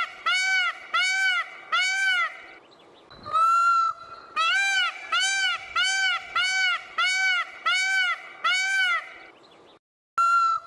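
Peacock calling in a rapid series of short, rising-and-falling calls, about two a second, with one longer call after about three seconds. The calls break off for a moment near the end and then start again.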